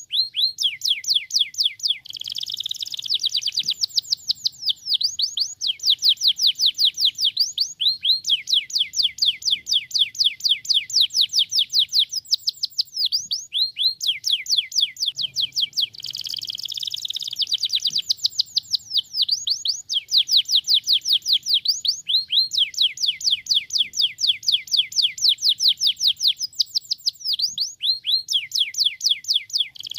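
Domestic canary singing a long rolling song: fast trains of repeated downward-sweeping chirps, many a second, with brief warbled phrases in between. It is the kind of recorded song played to stimulate other canaries to sing.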